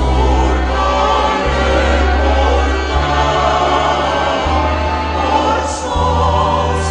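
Music: a choir singing over instrumental accompaniment, with sustained low bass notes that change about every one and a half seconds.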